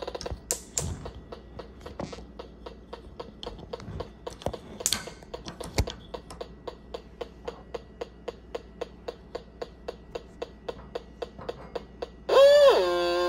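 Handheld combustible gas leak detector ticking steadily, about four ticks a second, as its probe sniffs around a gas oven. Near the end it gives a loud electronic alarm tone.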